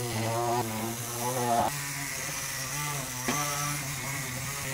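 Small corded rotary tool spinning a foam polishing pad on the car body's cured clear coat. Its motor whine wavers up and down in pitch for the first couple of seconds, then runs steadier.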